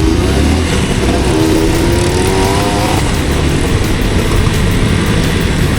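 Motorcycle engine running under way, climbing in pitch as it accelerates from about one and a half seconds in to about three seconds, over a steady rushing noise.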